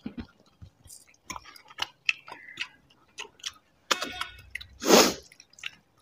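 Close-up eating sounds of people eating mutton curry and rice with their hands: chewing, lip smacks and many scattered small clicks. There is a short, loud breathy burst about five seconds in.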